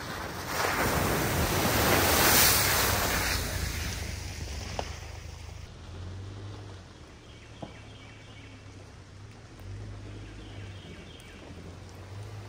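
A vehicle's low engine rumble under a loud swell of rushing noise that builds over the first few seconds and then fades, with a couple of light knocks later on.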